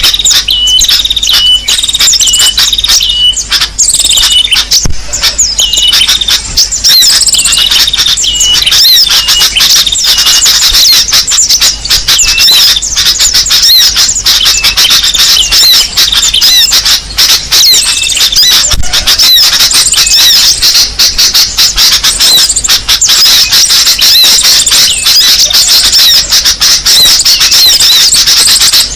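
Loud, dense chorus of overlapping high chirps and whistles from small songbirds: a bird-luring (pikat) call recording meant to draw in small birds. A short call repeats about twice a second in the first few seconds before the chirping thickens into a continuous tangle.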